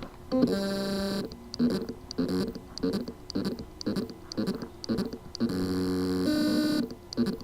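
2.5-inch Samsung-built hard drive (Seagate ST1000LM024) with its spindle motor struggling to spin up: a steady electric buzz for about a second, then a quick run of short buzzing pulses, then another longer buzz. The motor cannot reach full speed because of loose motor contacts on the circuit board.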